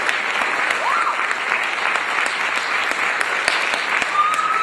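Audience applauding steadily, with a couple of short whistles heard over the clapping.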